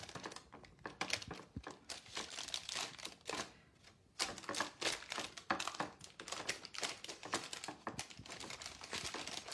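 Parchment paper crinkling and rustling in irregular crackles as hands press and smooth sugar cookie dough in a parchment-lined baking dish.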